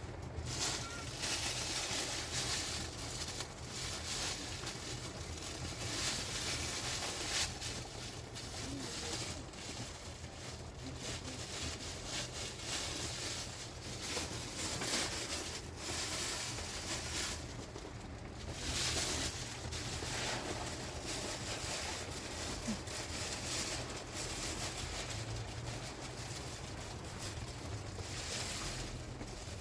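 Rain and wind: a steady rushing noise that swells and eases every few seconds, with a low rumble of wind underneath.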